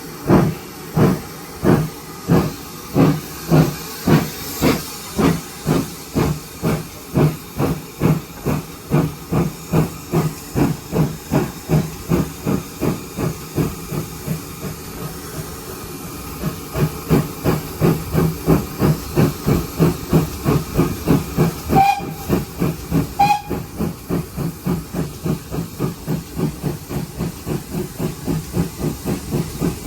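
Exhaust beats of a GWR 57xx 0-6-0 pannier tank steam locomotive working a train, with a steady steam hiss throughout. The beats quicken from about two to three a second as it gathers speed, soften briefly about halfway, then come strong again, with two short high tones about three-quarters of the way through.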